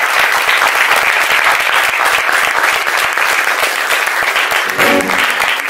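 Audience applauding steadily with dense clapping. Music begins to come in near the end.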